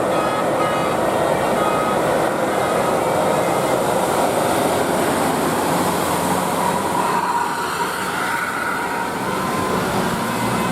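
Steady rumble and road noise of a large bus on the move, with no horn sounding.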